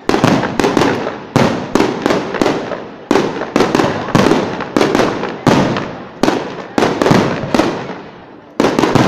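Aerial firework shells bursting in quick succession, a sharp bang about twice a second, each fading out over a fraction of a second. A short lull comes near the end, then a quick cluster of bangs.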